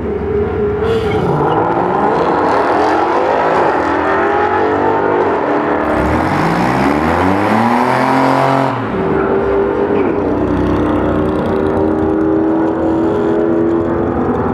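Volkswagen Golf R32 Mk4's 3.2-litre VR6 and a second car launching and accelerating hard down a drag strip. Engine notes rise in pitch and drop back at each gear change, then settle into a steadier note in the last few seconds.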